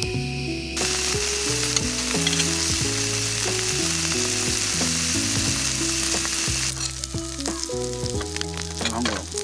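Food sizzling as it fries in a hot pan, starting about a second in and stopping near the end, followed by a few light clicks and taps, over soft background music.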